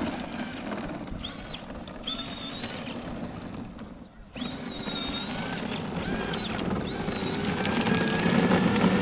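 A kids' ride-on car's small electric motor, a 6-volt motor overdriven on an 18-volt battery, whining as the car drives along the asphalt, growing louder in the last few seconds as it comes closer. Steady wind-like noise lies underneath, with a few short high whistles.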